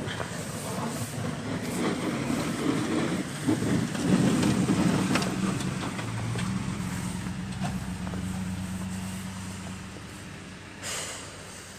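A motor vehicle's engine passes by, growing louder to a peak about four seconds in, then running steadily and fading away. A short hiss comes near the end.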